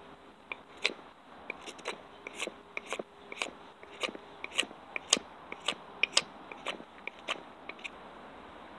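A knife blade shaving bark and wood off a stick being made into a tent stake. The strokes come as quick, sharp scrapes at an uneven pace, about two a second, and stop shortly before the end.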